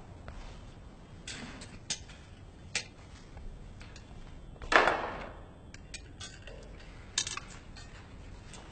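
Dishes and cutlery at a dinner table: scattered light clinks and taps, with one louder clatter about five seconds in.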